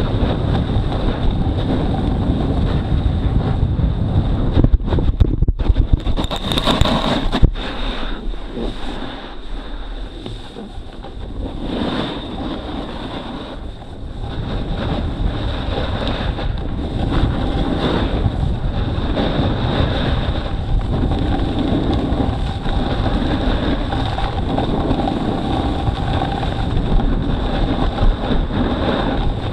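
Steady wind buffeting the microphone, a loud, low rumble, with a few sharp crackles a few seconds in.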